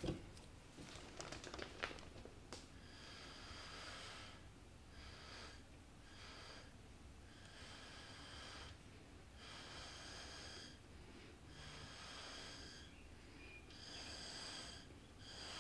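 Faint puffs of breath blown through a straw onto wet acrylic pour paint, about nine in a row, each lasting half a second to two seconds. The blowing spreads the paint cell outward into a bloom.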